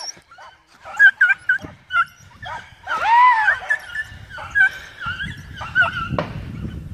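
Hunting beagle giving tongue while trailing a rabbit: a run of short, high yelps, with one longer rising-and-falling bay about three seconds in.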